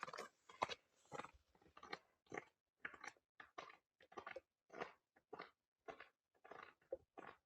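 Footsteps crunching on snow in boots, faint and steady at about two steps a second.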